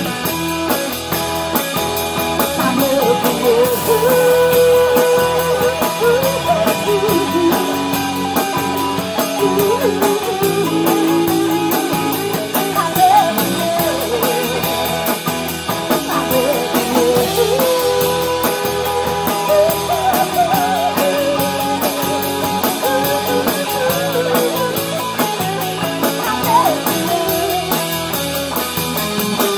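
Live band playing a rock song: electric and acoustic guitars over a drum kit, with a wavering melodic line running through it.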